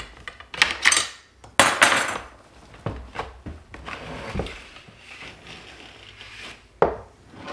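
Handling noise of a plastic inline duct fan and steel hose clamps on a workbench: several sharp metallic clinks and clatters, the loudest in the first two seconds, with lighter knocks later.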